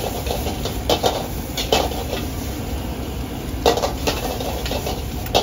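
Metal ladle and spatula clanking and scraping against a wok during stir-frying of egg fried rice: several sharp clanks at uneven spacing, the loudest about two-thirds of the way through. A steady low rumble runs underneath.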